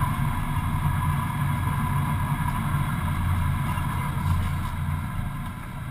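Stock car race engine running steadily at idle, heard from inside the cockpit.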